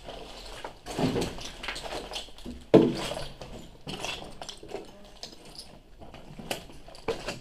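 Footsteps crunching and scuffing over rubble and broken debris on a concrete floor: irregular knocks and crunches, with one sharper knock about three seconds in.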